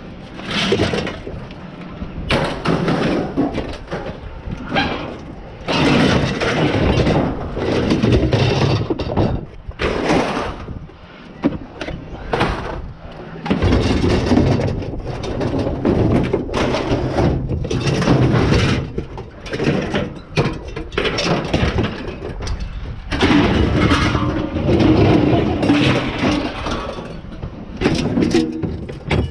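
Assorted scrap metal being unloaded by hand, pieces clanking and crashing onto a pile one after another in irregular bursts, with brief pauses between.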